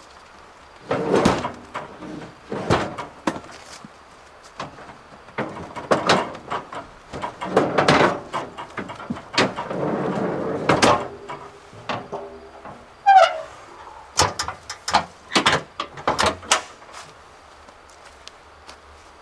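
Objects being handled: a run of knocks, scrapes and rustles, with a short rising rasp about thirteen seconds in. It stops a couple of seconds before the end.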